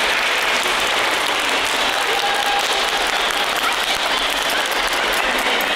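An audience of schoolchildren applauding, steady clapping throughout.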